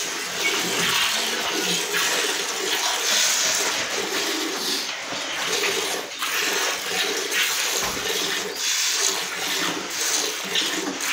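A cow being milked by hand: streams of milk squirting from the teats into a pail that already holds milk, a steady liquid rush.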